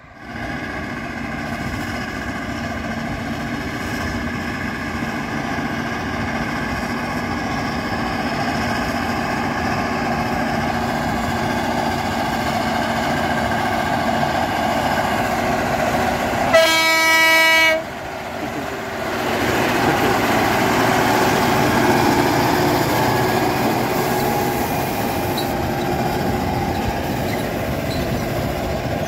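T-150K tractor's YaMZ V-type diesel running steadily under load while pulling a cultivator, growing louder as it comes near. About halfway through a horn sounds once for about a second, the loudest sound.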